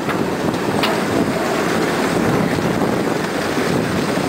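Steady running noise of a moving vehicle with wind buffeting the microphone, and one sharp click a little under a second in.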